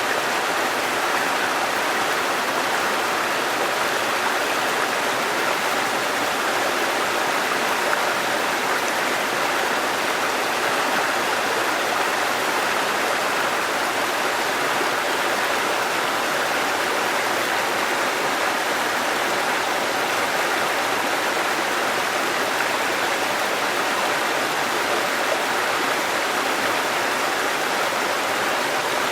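Waterfall cascading, a steady, unbroken rush of falling and running water.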